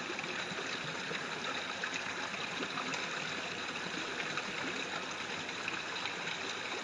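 A steady, even rushing noise that sounds like flowing water.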